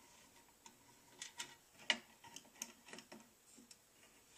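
Irregular light clicks and ticks as a screw-type rivet-setting tool is tightened down on a semi-tubular rivet in a toy Tonka pickup's bed, the loudest about two seconds in.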